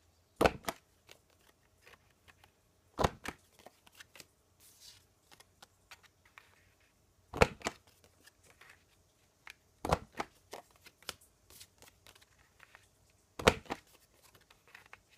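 Stampin' Up Envelope Punch Board's corner-rounder punch snapping through cardstock: five sharp clacks a few seconds apart, with quiet rustling of the card being turned and repositioned between presses.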